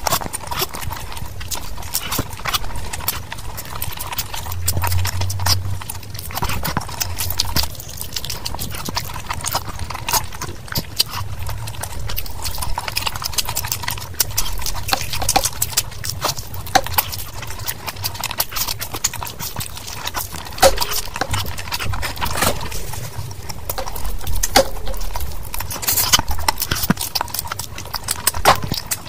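Close-miked ASMR eating: wet chewing and lip-smacking on oily mutton curry and rice, with many sharp, irregular mouth clicks throughout.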